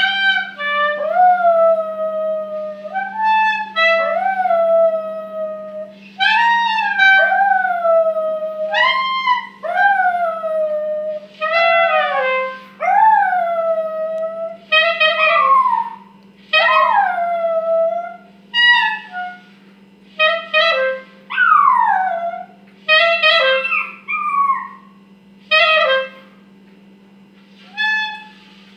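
Miniature pinscher howling along with a clarinet, in a string of separate sliding, rising-and-falling cries with short gaps between them. A steady low hum runs underneath.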